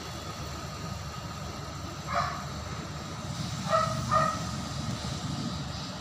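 A dog barking in short, high yaps, once about two seconds in and then twice in quick succession, over a steady low rumble.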